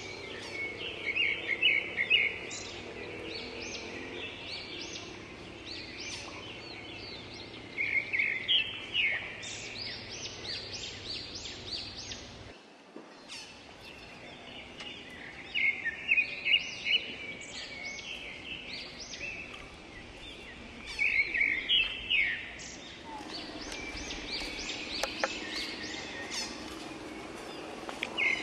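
A forest bird singing, repeating short phrases of rapid high chirping notes every several seconds over steady outdoor background noise.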